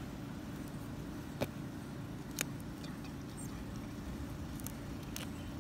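Steady low background rumble, with two brief soft clicks about one and a half and two and a half seconds in.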